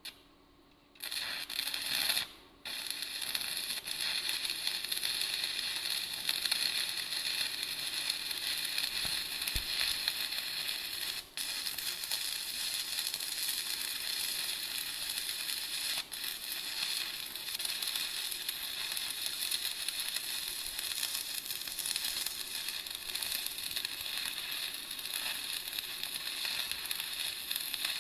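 Electric welding arc crackling and sizzling steadily on metal, starting about a second in and broken off briefly a few times.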